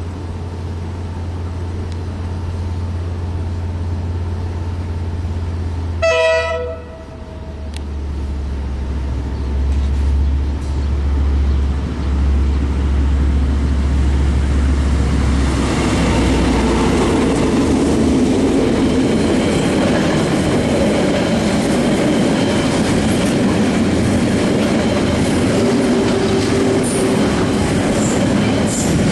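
Two KiwiRail DL class diesel-electric locomotives hauling a freight train: a steady low engine hum as they approach, one short horn blast about six seconds in, then from about halfway the container and tank wagons rolling past with wheel clatter.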